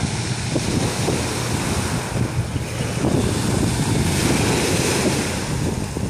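Small waves breaking and washing up a pebble shore, the surf hiss swelling briefly about four seconds in, with wind buffeting the microphone.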